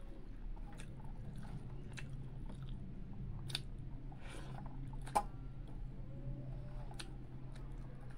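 Close-up eating sounds of a person eating rice and fish by hand: chewing with wet, squishy mouth noises, fingers working rice on a steel plate, and several sharp clicks, the loudest about five seconds in, over a steady low hum.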